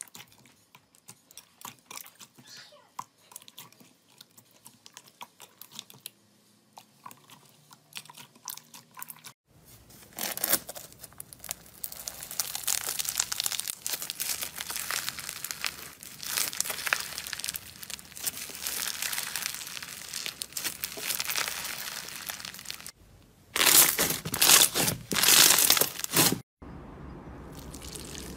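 Hands working slime, with no voice: at first faint sticky pops and clicks as clear rainbow slime is pressed. Then, from about a third of the way in, dense crunching and crackling as white foam-bead slime (floam) is pulled and torn apart, loudest in a few short bursts near the end. The sound then drops to a steadier, softer crackle of purple foam-bead slime being pressed.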